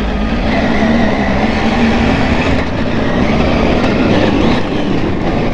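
Triumph Tiger adventure motorcycle's three-cylinder engine running steadily while riding over a rough gravel dirt track, its drone mixed with a heavy rumble of wind and tyres on the loose surface.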